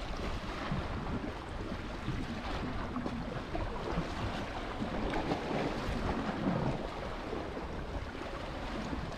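Wind buffeting the microphone over the steady wash of sea surf on the shore.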